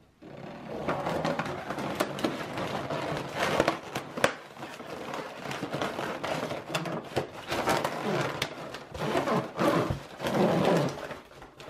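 An 18-inch foil balloon crinkling and rustling as it is handled and a latex 260 balloon is stretched around it, swelling and fading with a few sharp clicks.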